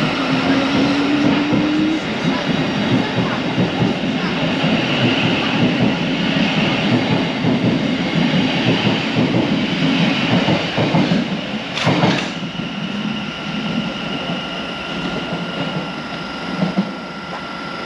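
Train running on the rails with a steady rumble and wheel clatter. A short rising whine comes in the first couple of seconds, and there is one sharp knock about twelve seconds in.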